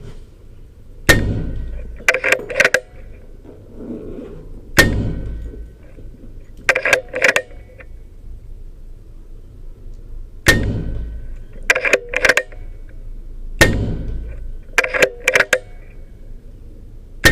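Skout Epoch PCP air rifle firing pellets: four sharp shots a few seconds apart, with a fifth at the very end. About a second after each shot comes a quick run of three or four metallic clicks as the action is cycled to load the next pellet.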